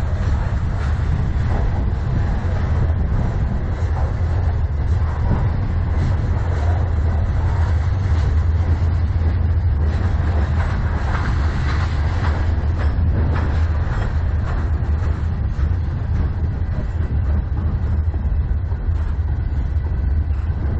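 Freight train cars (covered hoppers, then open-top gondolas) rolling past close by, a steady low rumble of steel wheels on the rails. A run of sharper clicks and clacks comes about halfway through.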